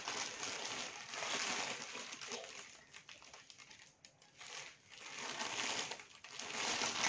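Plastic wrapping rustling and crinkling in several swells, loudest in the first three seconds and again near the end.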